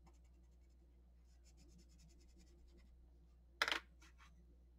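Faint scratching of a coloured pencil on paper, then a coloured pencil put down with a sharp clack and a few light clicks about three and a half seconds in.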